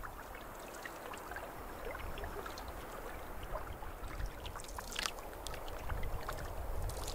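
Canoe on open water: lake water lapping against the hull with paddle strokes, small splashes and drips, the loudest splash about five seconds in.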